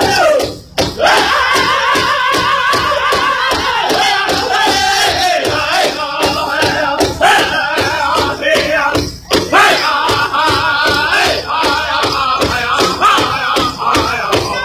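Powwow drum group singing high-pitched in unison around a big shared drum, beating it together in a steady even beat. The voices break off briefly about half a second in and again about nine seconds in, while the drum keeps going.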